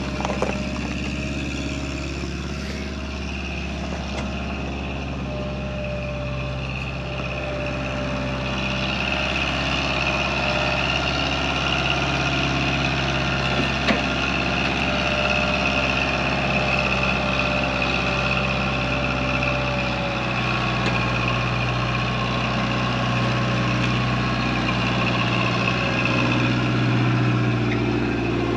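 Small tractor's engine running steadily under load as it tows a Chevrolet Suburban on a line; it gets louder about eight seconds in, with a single sharp click near the middle.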